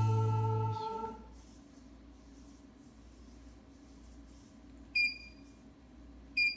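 The last chord of a song fades out over about a second, leaving faint room tone, broken near the end by two short, high beeps.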